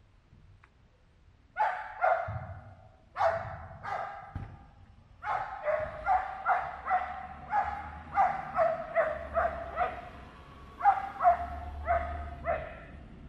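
A dog barking repeatedly. After a quiet first second and a half come two pairs of barks, then a quick run of about two barks a second, and a few more barks near the end.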